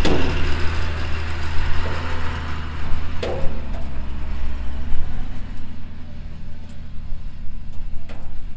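Engine of a gravel-loaded tipper truck running with a steady low drone as the truck drives off.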